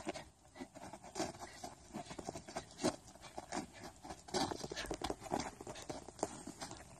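Boots crunching and scuffing on packed snow in quick, irregular steps as a person shadowboxes, shifting her feet with punches and a push kick.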